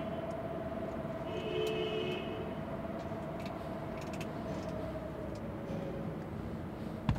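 Steady background noise with a faint steady hum that fades out near the end, and a short tone about a second and a half in. A few sharp clicks come at the very end.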